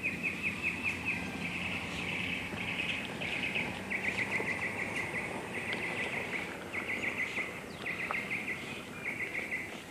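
A bird chirping in rapid trills, repeated in short runs of about half a second to a second with brief gaps between them, over a steady background hiss.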